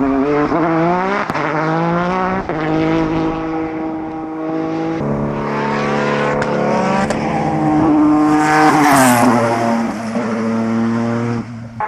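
Peugeot 208 T16 Pikes Peak race car's twin-turbo V6 at full throttle, the engine note climbing and stepping down at each upshift. It is loudest about nine seconds in, where the note slides down.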